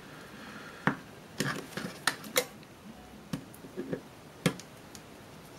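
The plastic case of a 1995 Alphapage pager being pried open with a small tool: irregular sharp plastic clicks and snaps as the tool works along the seam and the snap-fit clips give.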